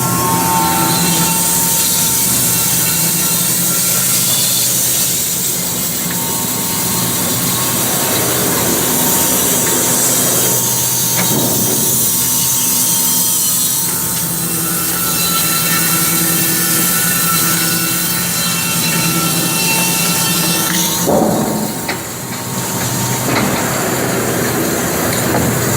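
Wood-Mizer band sawmill running, its engine humming steadily while the band blade saws through a log with a loud, high hiss. The level dips briefly near the end.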